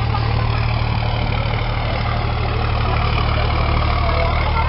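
Diesel truck engines idling through straight-piped exhausts with a steady low rumble.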